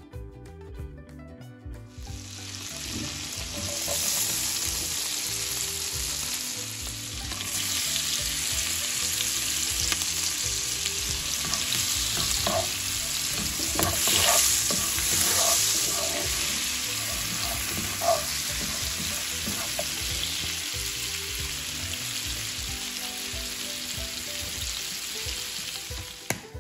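Chopped green capsicum and chillies sizzling in butter and oil in a frying pan. The sizzle starts about two seconds in and holds steady, with a few strokes of a spatula stirring the pan around the middle.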